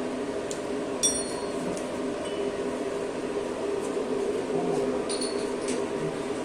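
Steady hum of a powered-up CNC lathe with its spindle stopped, broken twice by sharp ringing metallic clinks, about a second in and about five seconds in, as a small metal test piece is handled at the chuck.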